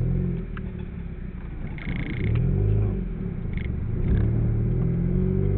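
Car engine running, heard from inside the cabin, its pitch rising and falling as the car moves off slowly and picks up a little near the end.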